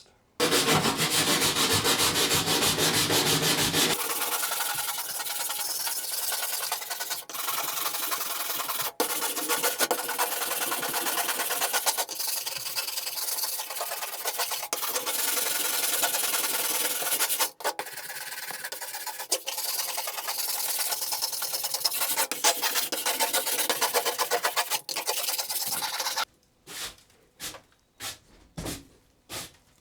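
Wire brush scrubbed by hand over surface rust and loose paint on a van's steel floor, in fast back-and-forth strokes. Near the end it breaks into separate strokes about twice a second.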